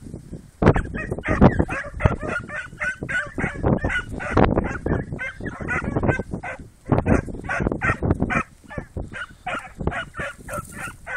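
Petit Basset Griffon Vendéen hound puppies yelping and baying in quick, overlapping cries, several a second: hounds giving tongue as they work a rabbit's scent.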